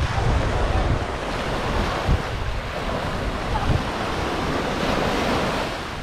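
Small waves washing up onto a sandy shore in a steady hiss, with wind buffeting the microphone in uneven low gusts.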